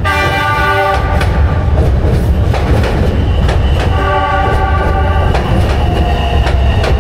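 Wuhan Metro train running on its track, with a heavy low rumble and the clack of wheels over rail joints, and its horn sounding twice, briefly at the start and again for about three seconds.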